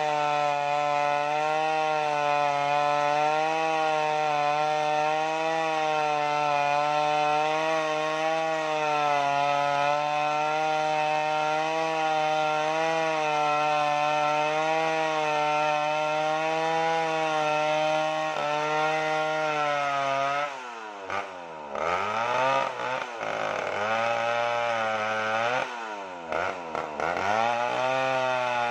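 Stihl MS 070 two-stroke chainsaw running at steady high revs while cutting into a large red sengon log. About twenty seconds in the engine note drops, then is revved up and down several times.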